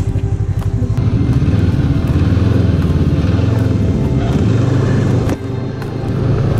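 Lynx snowmobile engine running while riding along a snowy trail, heard from on board the machine. It gets louder about a second in and eases off again near the end.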